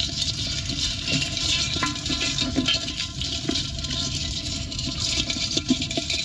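Water splashing and trickling, a steady rushing hiss with a few small knocks.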